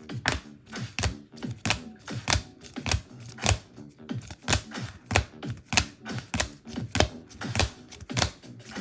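Background music with a steady, sharp clicking beat, about one and a half beats a second, over soft held tones.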